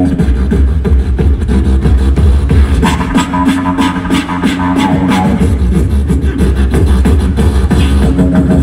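A group of beatboxers performing a cappella beatbox through a concert sound system: vocal kick and snare hits in a steady rhythm over a deep vocal bass line.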